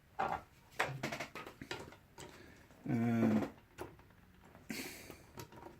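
Small clicks and taps of plastic scale-model kit parts being handled on a workbench, with a brief hum of a voice about three seconds in and a short rustle near the end.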